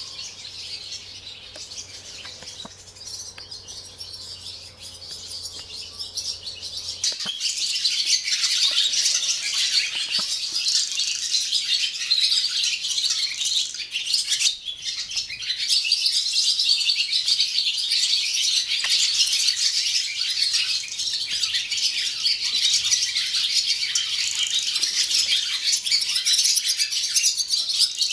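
Dawn chorus of many barn swallows twittering with rattling trills, a dense unbroken chatter that grows much louder about seven seconds in.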